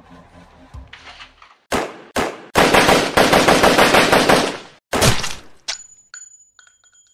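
Two single gunshots, then about two seconds of rapid automatic gunfire, one more shot, a click and a few light metallic clinks that ring briefly.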